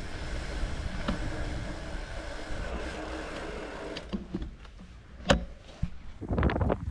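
Mountain bike riding: a steady whir of rolling tyres and a coasting freehub, then a few sharp clicks and knocks from the bike over rough ground, one louder knock about five seconds in.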